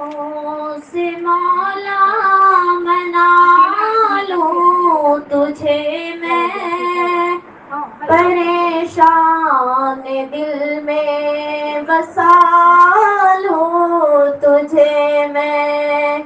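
A solo female voice singing an Urdu munajaat (devotional supplication), drawn-out notes with ornamented turns in the melody and brief pauses for breath.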